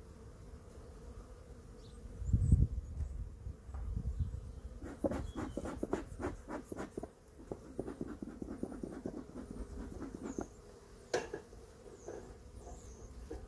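Honeybees humming steadily over an opened hive. A low thump comes about two seconds in, and from about five seconds in there is a run of quick short puffs, a bee smoker's bellows being worked.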